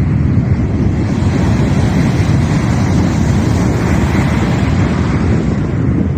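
Sea waves breaking in a steady, loud wash, with wind rumbling on the microphone.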